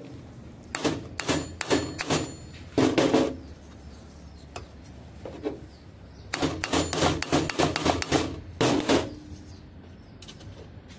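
Hammer blows peening over steel rivets on a motorcycle's multiple-sprocket gear cluster resting on a bench. Quick metallic strikes come in bursts: a handful about a second in, then a longer rapid run about six seconds in, some with a brief metallic ring.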